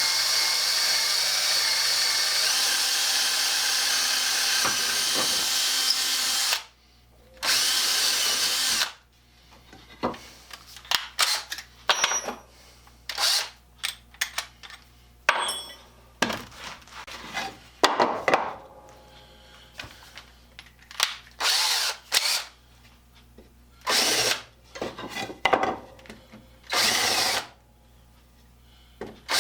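Electric drill drilling: one long run of about six and a half seconds, a shorter run soon after, then many short bursts with clicks and knocks between them.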